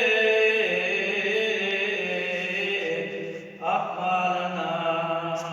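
A man's voice chanting a liturgical prayer in long, drawn-out held notes that step down in pitch, with a quick breath about three and a half seconds in before the chant carries on.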